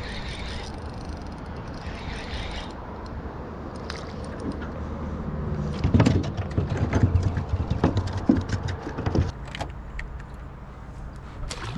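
Steady low hum of a bow-mounted electric trolling motor, with a run of loud clicks and metallic rattles from about six to nine seconds in as fishing tackle is handled.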